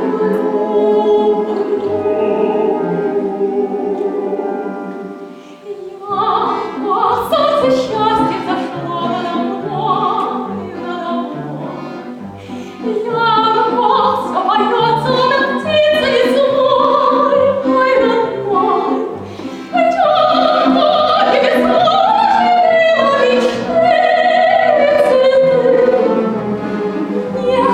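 Operetta duet: classically trained voices singing over an orchestra. A held chord dies away about five seconds in, then a new phrase starts, with the singing line rising and falling over a regular bass accompaniment.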